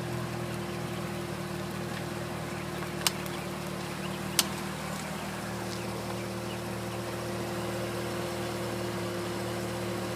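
Corvette engine idling steadily, with two sharp pops from the front wheel as the steering is turned hard, about three seconds in and again a second and a half later.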